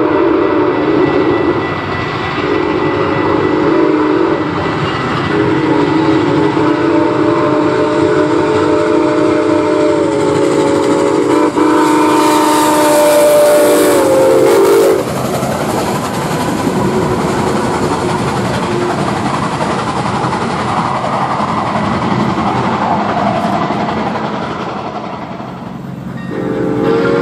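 Santa Fe 3751's six-chime steam whistle blowing long chords as the 4-8-4 steam locomotive approaches, its pitch dropping as the engine passes about halfway through, with a loud rush of steam. Then the rumble and clatter of the train rolling by, and the whistle chord sounds again near the end.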